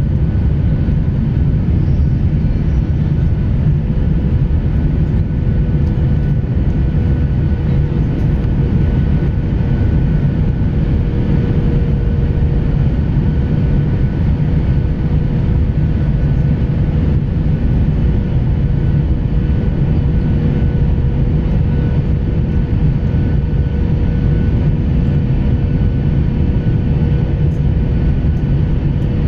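Steady cabin roar of a Boeing 737-800's jet engines and rushing airflow, heard from a seat over the wing during the descent for landing, with a steady whining tone riding on top.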